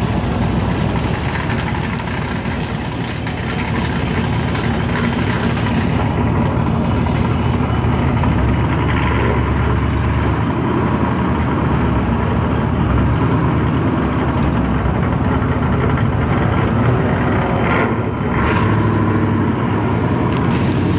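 Steady low rumble of idling and slowly rolling vehicle engines, among them a semi-truck tractor's diesel engine alongside.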